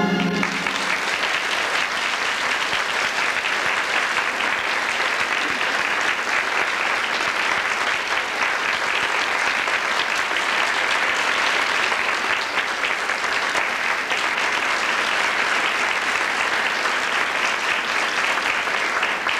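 A theatre audience applauding steadily with dense clapping. The last bit of orchestral music cuts off right at the start.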